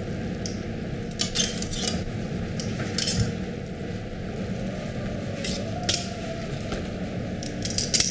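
Metal tongs clinking and scraping against a stainless steel sauté pan as spaghetti is tossed in the sauce: irregular clinks, a cluster of them near the end, over a steady low background hum.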